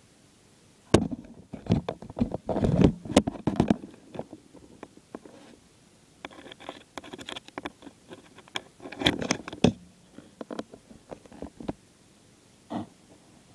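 Irregular knocks, clicks and scraping of objects being handled close to the microphone, in two busy spells with scattered ticks between and one last knock near the end.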